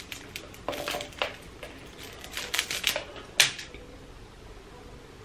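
Metal clasps and buckle of a handbag strap clicking and clinking as the strap is unrolled and handled, a scatter of sharp clicks over the first three and a half seconds with the loudest one about three and a half seconds in, then only soft handling.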